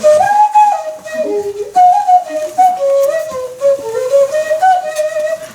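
A wordless tune in a flute-like tone: held notes stepping up and down, with short slides between them.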